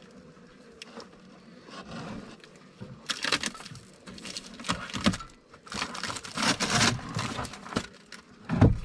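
Hands working at the swarm box: irregular rustling, crinkling and scraping, with a sharp knock near the end.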